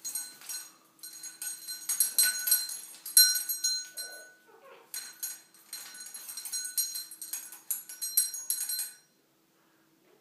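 Small metal bell on a hanging ring toy jingling, with the metal rings clinking, in repeated shaking bursts as a parrot swings and flaps on it; the jingling stops about nine seconds in.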